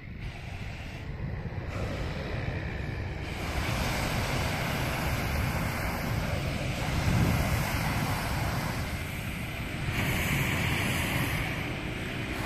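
Wind rushing and buffeting over the microphone, a steady low rumbling noise that swells and eases.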